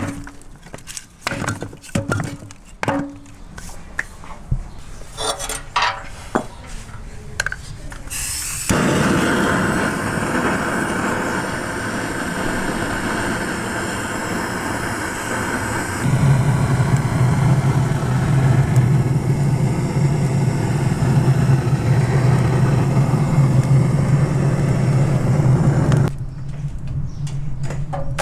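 Wooden clunks and clatter as firewood is loaded into a clay tandoor, then a gas torch held in the tandoor's draught opening, hissing steadily as it lights the fire. The torch grows louder about halfway through, with a deep hum under the hiss, and the hiss eases near the end.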